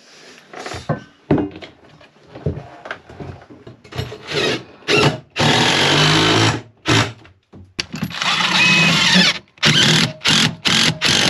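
Cordless power driver with a socket extension driving a fastener into a wooden boat frame. It runs in several short bursts and two longer runs of about a second and a half each, around five and eight seconds in.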